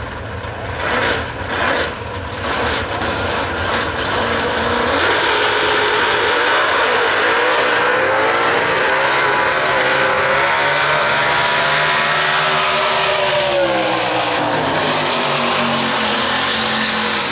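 Two classic V8 drag-racing cars revving in two short bursts at the starting line, then launching and running at full throttle down the strip. The engine note holds loud and steady, then falls in pitch as the cars pull away.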